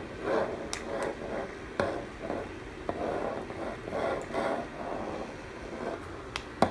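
Small DC motor of a homemade plastic-bottle vacuum cleaner running, with irregular scraping and rattling as it is moved over debris, and a few short clicks.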